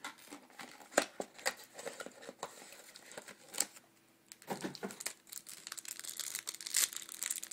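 Cellophane wrapper of a trading-card pack crinkling and tearing as it is handled and opened, with scattered sharp clicks. The crinkling grows denser in the last few seconds.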